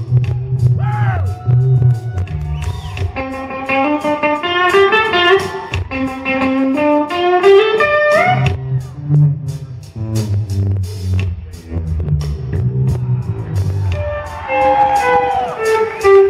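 Live blues-rock: two electric guitars playing lead lines with string bends over bass guitar and drums.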